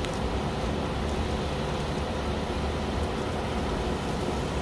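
Deteriorated refrigeration rack condenser running with a sprinkler spraying water over its coil, a steady rushing noise with a faint hum. The water spray is a stopgap to hold down discharge pressure on a condenser too far gone to cool properly.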